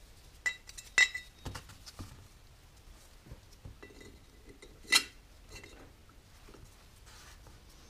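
Steel-backed engine main bearing shells (the center main thrust bearing) clinking against each other and against a cast-iron main bearing cap as they are handled and pressed into the cap. A few sharp metallic clinks with brief ringing, the loudest about a second in and about five seconds in, between softer handling taps.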